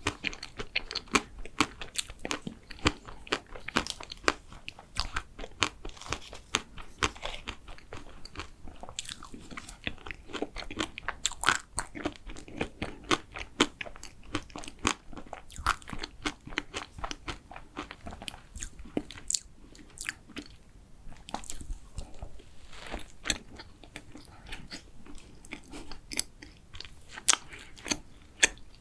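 Close-miked biting and chewing of a chewy chocolate macaron, with many short crunching clicks throughout.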